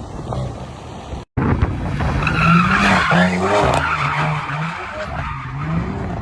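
A car drifting: tyres screeching loudly over an engine whose revs rise and fall in quick steps, after an abrupt cut about a second in from a quieter passage of engine and wind noise.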